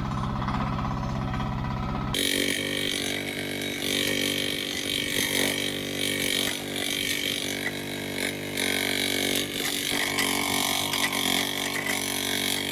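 A small engine idling low for about two seconds, then, from an abrupt change, a PC08 mini excavator's engine running under load with a high whine over the engine note while its arm digs.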